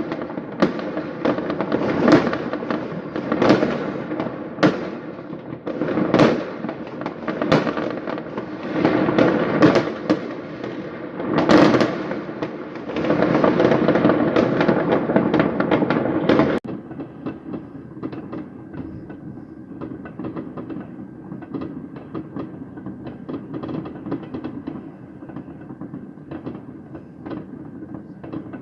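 Fireworks going off: a dense run of bangs and crackling, with a loud burst every second or two. About sixteen seconds in, it cuts abruptly to a quieter, steady noise full of small ticks.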